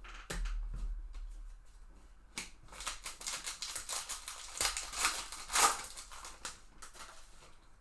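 A stack of trading cards being handled and flipped through by hand: a quick run of small clicks and rustles of card and plastic sliding against each other.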